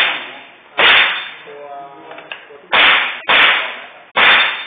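Four .22 rimfire rifle shots, fired unevenly: one about a second in, then a quick pair around three seconds, and another near the end. Each sharp crack is followed by a short fading echo.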